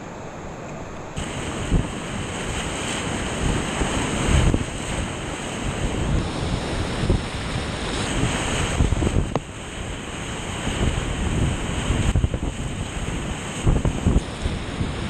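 Whitewater rapids at high water, heard from inside the rapid from a kayak, with splashes and wind buffeting the microphone. The noise jumps louder about a second in and carries many short thumps.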